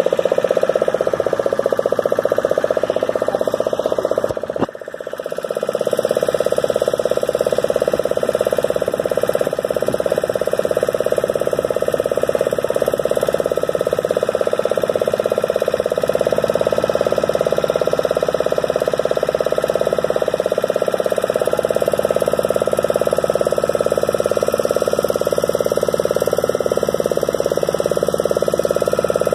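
A fishing boat's engine running steadily as the boat travels across open water, with a brief drop in level about four and a half seconds in.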